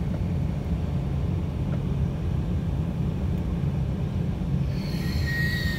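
ATR 72 turboprops running in reverse pitch to back the aircraft out under its own power: a steady low propeller drone, with a short high whine near the end.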